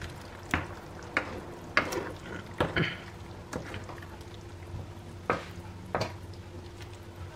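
Wooden spoon stirring a thick, simmering sweet and sour sauce of vegetables in a non-stick pan, knocking against the pan at irregular intervals, fewer in the second half, over a low steady hum.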